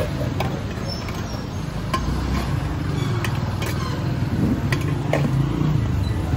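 A metal spoon clinks sharply against a steel bowl several times, over a steady low engine hum of street traffic.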